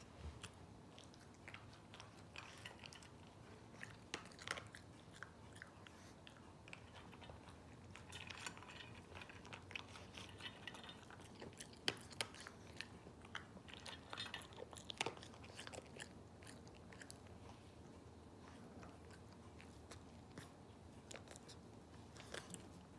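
Pekingese dog crunching dry kibble, in irregular crisp crunches that come thickest in the middle stretch.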